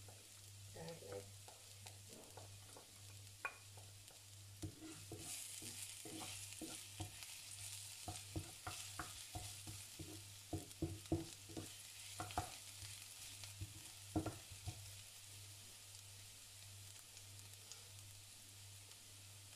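Chopped garlic sizzling in hot oil in a stainless steel frying pan while a wooden spatula stirs and scrapes it. The spatula knocks against the pan in a scatter of sharp taps through the middle of the stretch. The sizzle grows fuller about five seconds in.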